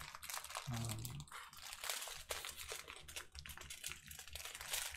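Plastic bags of diamond-painting drills crinkling and rustling as they are handled and rolled up, a string of small irregular crackles.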